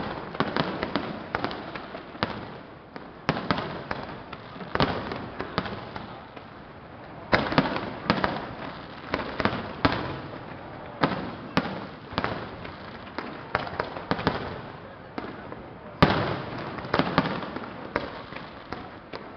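Aerial fireworks display: shells bursting in quick irregular succession with dense crackling between them, and heavier bangs about 7, 11 and 16 seconds in.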